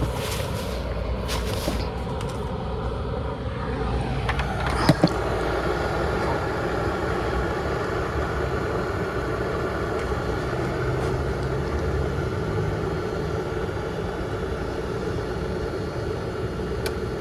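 Small electric travel kettle heating two cups of water, giving off the steady noise of water just short of the boil. Two sharp clicks come about five seconds in.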